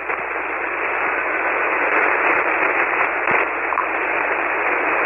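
Received single-sideband signal of an ICOM IC-718 transmitter keyed up with nobody speaking: a steady hiss squeezed into the narrow voice band. It is the background noise of the open microphone brought up by the radio's speech compressor, which net control judges not too bad.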